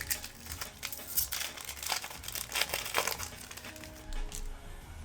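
Plastic foil wrapper of a trading-card pack crinkling and tearing as it is opened by hand, in a run of sharp crackles that eases off near the end, over background music.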